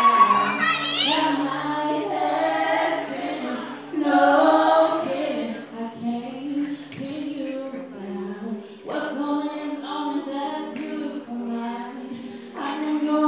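A small group of voices singing together, with a woman's lead voice on a microphone over the others.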